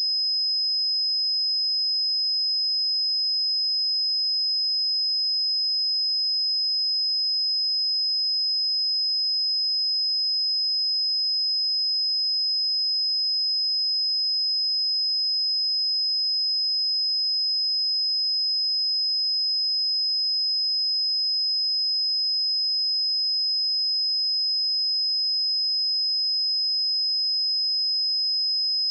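A pure 5071 Hz sine-wave test tone, a single high-pitched steady note held at an unchanging level.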